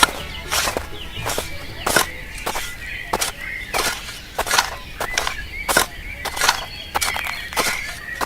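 A regular series of sharp knocks or taps, about three every two seconds, like steady hammering, with faint chirping between the strikes.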